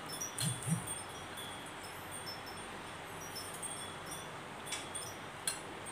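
Wind chimes tinkling: scattered short, clear high notes at the same few pitches, over a faint steady hiss. Two short low sounds come about half a second in, and a couple of sharp clicks near the end.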